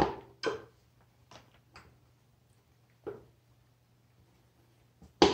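A handful of scattered knocks and clunks of things being handled and set down, the loudest at the start and near the end, over a steady low hum.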